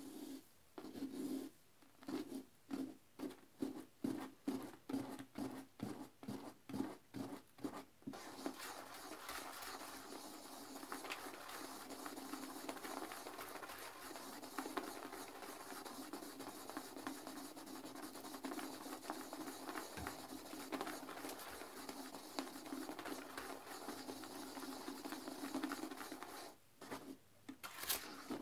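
Toilet brush scrubbing a porcelain toilet bowl in sudsy cleaner water. For the first eight seconds or so it goes in separate strokes about twice a second, then turns to steady fast scrubbing, with a few separate strokes near the end.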